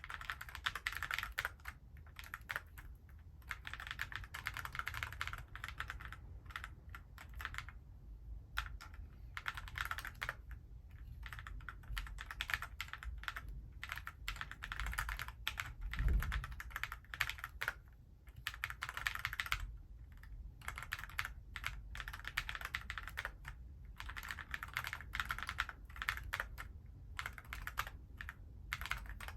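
Typing on an Alice-layout mechanical keyboard: quick runs of keystroke clacks broken by short pauses, with one deeper, louder thump about halfway through.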